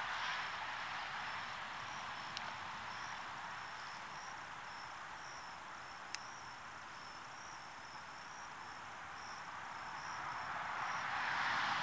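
Insects chirping in a high, pulsing trill, about two pulses a second, over a steady hiss that swells near the end.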